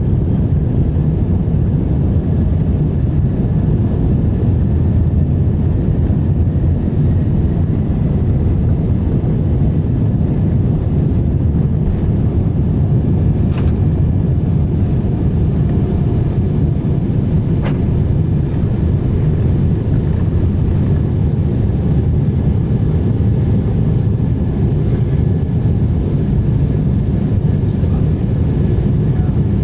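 Steady low rumble of an airplane's engines and airflow, with two faint clicks about halfway through.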